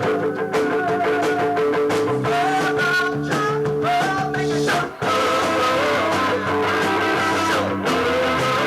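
Live new wave band playing a song: electric guitar over bass and drums, with held notes and a brief break about five seconds in.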